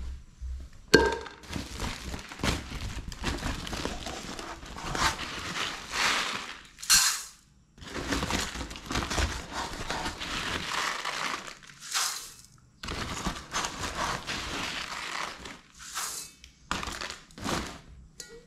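A woven plastic rice sack rustling and crinkling as a hand digs into it to scoop rice. Rice is poured into a rice cooker's inner pot in a few short, hissing pours.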